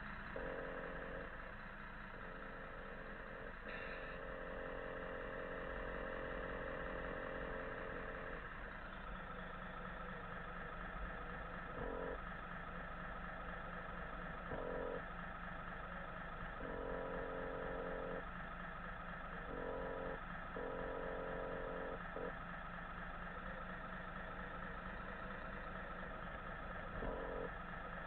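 Radio-controlled model truck running with a steady engine-like hum. A mid-pitched tone cuts in and out every second or two, as if the engine sound rises and falls with the throttle.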